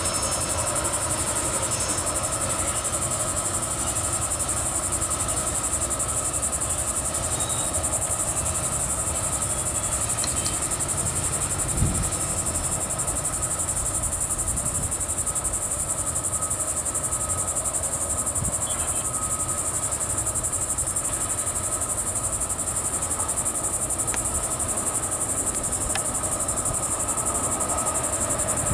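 Freight train tank cars rolling slowly along the rails with a steady low rumble, and a single knock about twelve seconds in. Over it runs a steady high buzz of insects.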